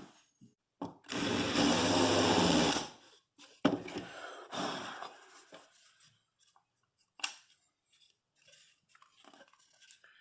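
Power drill running in a burst of about two seconds, then a shorter one that starts with a sharp click and winds down, recessing screw holes in MDF so the screw heads sit flat. A few light clicks and knocks follow.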